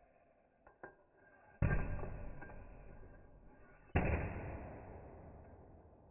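Glue-pulling tool yanking on glue tabs stuck to a car's sheet-metal pillar: two sharp snaps about two seconds apart, each with a long fading tail, preceded by a couple of small clicks. These are pulls lifting out hail dents in paintless dent repair.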